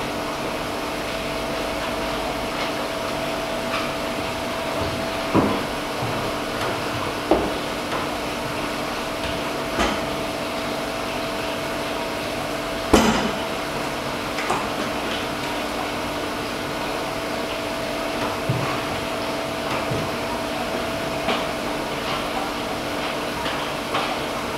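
Steady hum and hiss of a brewhouse boil kettle coming up to the boil, with scattered metal knocks and clanks of the vessels being handled, the loudest about 13 seconds in.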